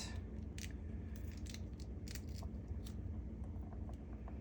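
Pomegranate seeds being pried out of the fruit by hand, making small irregular crackling clicks over a low steady hum.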